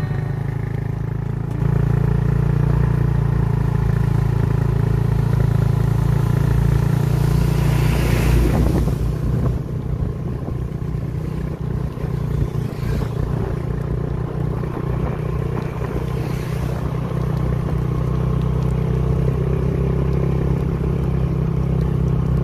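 Motorcycle engine running steadily while being ridden, with wind rushing on the microphone. A louder rushing noise swells and fades about eight seconds in.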